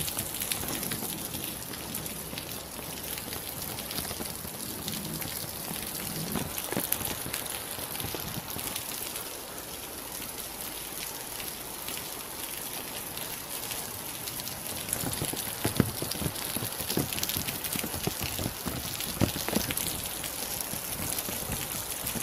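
Steady rain falling, with many individual drops hitting close by; the louder drop hits come more often in the second half.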